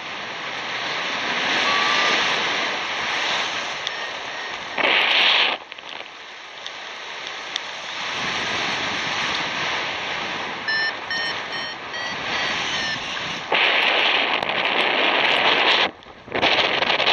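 Airflow rushing over the microphone of a paraglider pilot's camera in flight: a steady wind noise that swells louder about five seconds in and again near the end, with a faint run of short beeps around the middle.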